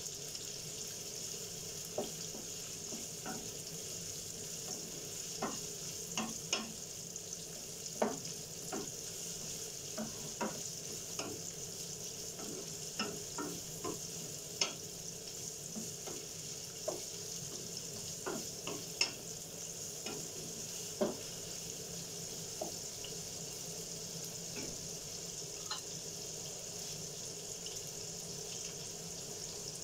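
Sliced red onions sizzling steadily in a nonstick frying pan. A wooden spatula stirs them, scraping and knocking against the pan now and then, mostly in the first two-thirds.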